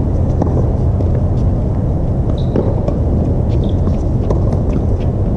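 Steady low rumble with a few sharp pops of a tennis ball off rackets and court, and a couple of brief shoe squeaks on the hard court.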